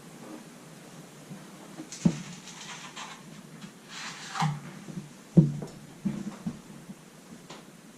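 A few light household knocks and clicks, the two loudest about two seconds and five and a half seconds in, with brief rustling in between.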